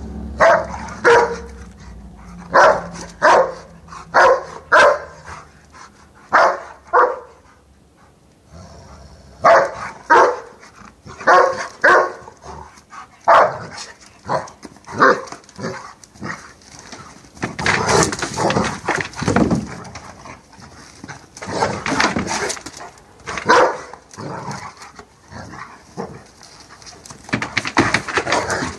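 Dogs barking during rough play: spells of short, sharp barks about every half second to a second, broken by longer, rougher noisy stretches in the second half.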